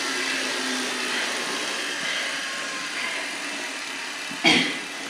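Steady rushing noise of a blowing electric fan, easing off slightly, with one short loud rush of sound about four and a half seconds in.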